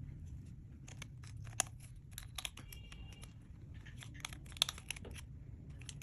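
Slime being worked by hand, giving a run of irregular sharp clicks and crackles, with a couple of louder pops, over a low steady hum.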